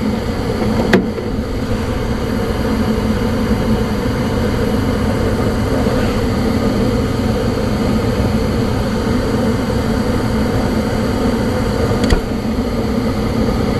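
Gas furnace running with its burners lit: a steady, loud hum and rush from the draft inducer fan and burner flame. A sharp click about a second in and another near the end.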